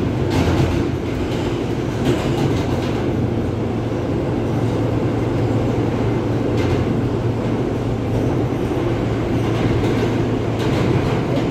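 R160 subway car running through the tunnel, heard from inside the car: a steady rumble of wheels on rail, with a few sharp clacks from the track.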